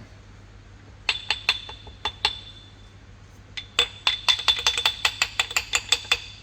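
Light metal-on-metal taps that ring: a handful spaced out about a second in, then a quicker run of about five a second, struck while working a worn drive tyre off a dodgem's drive wheel.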